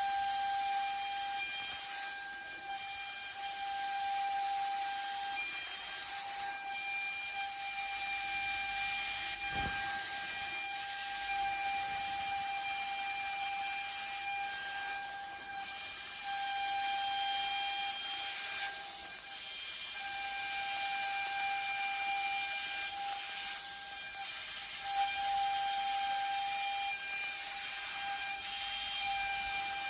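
CNC router spindle running at speed while cutting a die board: a steady high whine with a hiss over it, the whine dipping briefly a few times.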